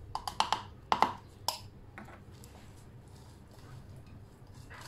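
Hard plastic clicks and knocks as the blade assembly of a pull-cord food chopper is pulled out of its bowl and handled, several sharp ones in the first second and a half, the loudest about a second in. After that, only faint handling noise.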